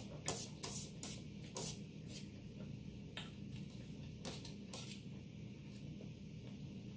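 Close-miked eating sounds: scattered soft clicks and crackles of chewing and of fingers picking at taco fillings, more frequent in the first couple of seconds, over a faint steady hum.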